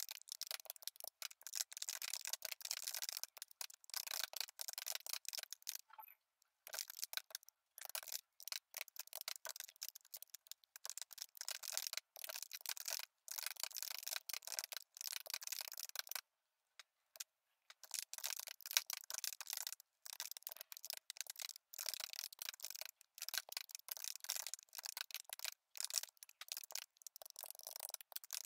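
Computer keyboard typing: quick runs of key clicks with short pauses between them.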